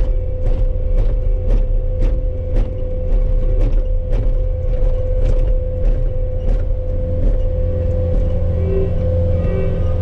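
Skid steer's diesel engine running steadily under the operator's controls, heard from inside the cab, with a steady whine over the low drone. A sharp ticking about twice a second runs through most of it and stops about seven seconds in.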